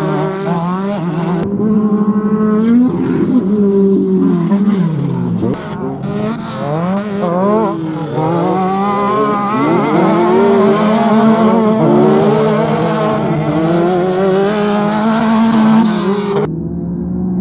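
Off-road race vehicles' engines running hard, the pitch repeatedly rising and falling as they rev, shift and pass. Several engines overlap. Near the end the sound cuts abruptly to a duller, steady tone.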